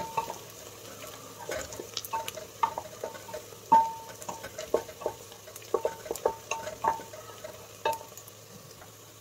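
Wooden spatula stirring and scraping frying onions in an open pressure-cooker pot, knocking irregularly against the metal sides, each knock ringing briefly, over a faint sizzle. The loudest knock comes a little under four seconds in, and the stirring thins out near the end.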